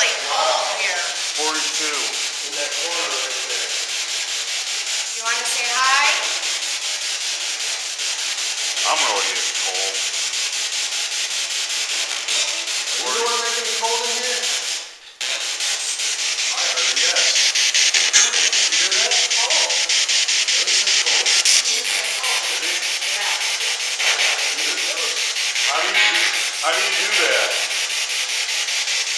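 Spirit box sweeping through radio stations: a steady hiss of static, rapidly chopped by the sweep, with brief fragments of broadcast voices breaking through every few seconds. It cuts out for a moment about halfway through.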